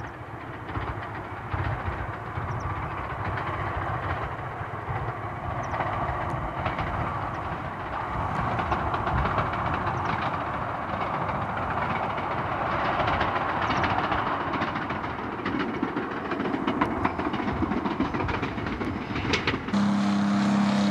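A train running along the line: steady rumble and rail noise with faint clicks from the wheels. A steady low hum comes in near the end.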